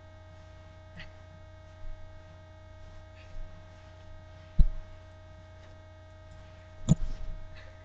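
A steady low hum with scattered faint rustles and two dull thumps, one about halfway and one near the end, as a tied-up boy wriggles free on a carpeted floor.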